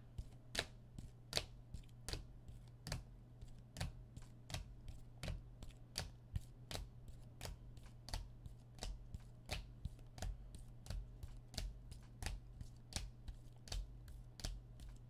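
A steady run of light, sharp clicks, about two to three a second, over a constant low electrical hum.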